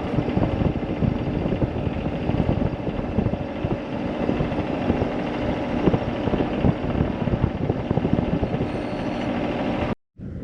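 A motor vehicle engine running steadily, with dense rattling and clatter over it. It cuts off abruptly near the end.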